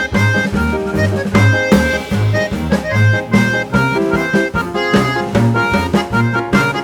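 Instrumental music with a steady beat: a repeating bass line about two notes a second, drum hits and a melody of held notes.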